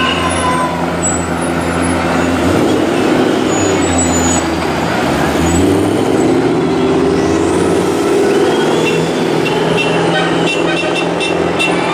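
Engines of Toyota Dakar rally cars running as they drive slowly past, a steady deep engine note that rises briefly about halfway through.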